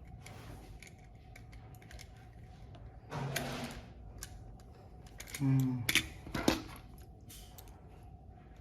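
Scattered small clicks and taps from handling a computer mouse and its small plastic parts. A short rushing noise comes about three seconds in. Around five and a half to six and a half seconds there is a brief low vocal sound from a man, the loudest part.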